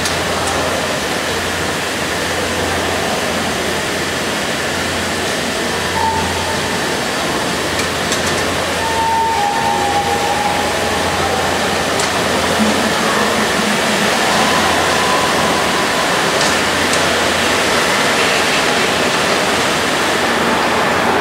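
Steady hissing noise with a constant low hum, the ambience of a large hall where 5-inch gauge live-steam model trains are running; a few faint short tones sound around the middle.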